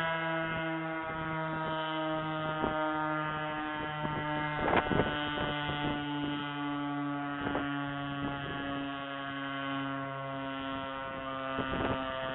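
Federal Signal STH-10 outdoor warning siren sounding a steady tone whose pitch slowly falls. A few short crackles come through, the loudest about five seconds in.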